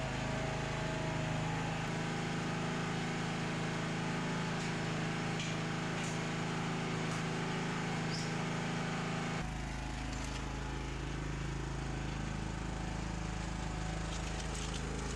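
Log splitter's small gas engine running steadily, its low note shifting slightly about two seconds in and again after nine seconds.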